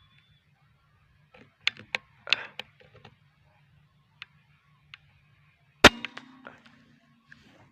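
A single air rifle shot about six seconds in, a sharp crack followed by a short low ringing hum. A few lighter clicks and knocks come before it.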